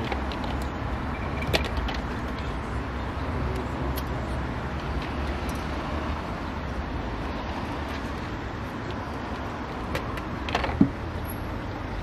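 Steady rumble of street traffic, with a few sharp metallic clicks of hand tools on the engine, the loudest near the end.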